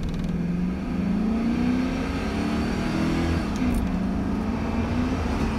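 LS V8 truck engine at wide-open throttle, heard from inside the cab, rising in pitch as it pulls. The pitch drops once about three and a half seconds in, a gear change, then holds as it keeps pulling.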